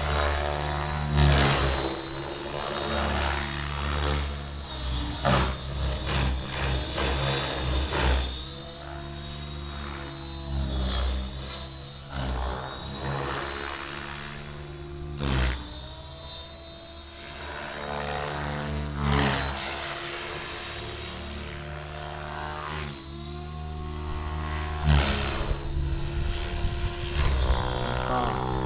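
Helicopter flying overhead: steady rotor and engine sound with a thin high turbine whine. It swells and fades and shifts in pitch as it circles.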